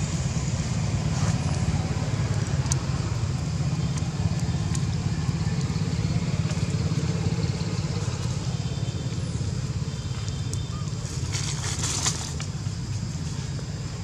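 A steady low rumble, with faint crinkling and crackling of a plastic bag being handled by a macaque. The crinkling thickens briefly near the end.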